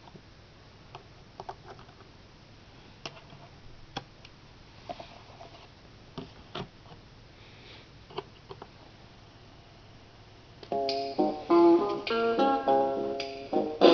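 Scattered light clicks and taps for about ten seconds, then a 45 rpm single starts playing through the record player's built-in speaker: plucked guitar notes.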